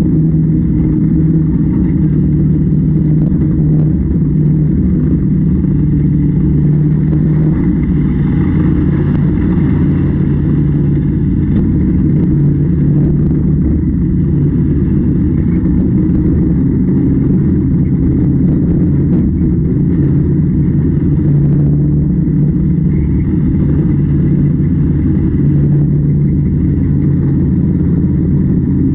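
Harvest machinery engine running steadily: a constant low drone that holds the same pitch throughout.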